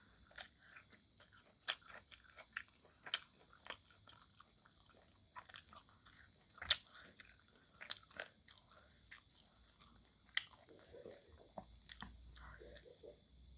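A person chewing and biting fried pork close to the microphone: faint, irregular mouth smacks and crunches.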